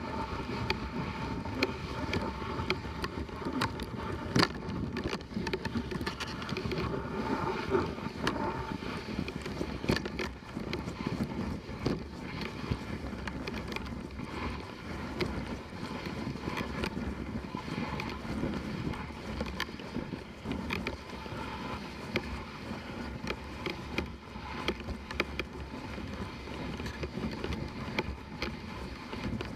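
Dog sled running along a packed snow trail behind its dog team: a steady hiss of the runners sliding on snow, with frequent small clicks and knocks from the sled and one sharper knock about four seconds in.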